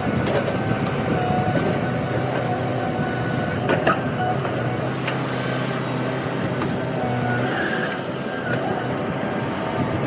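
Heavy machinery, a backhoe's diesel engine, running steadily under load, with sharp metallic knocks about four seconds in and a brief squeal near the end.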